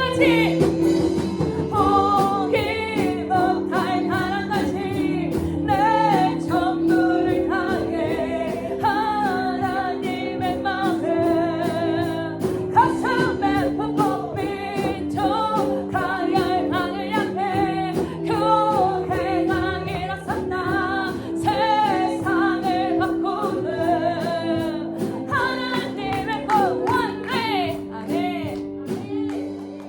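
Children's choir singing a worship song over instrumental backing, dropping in loudness near the end.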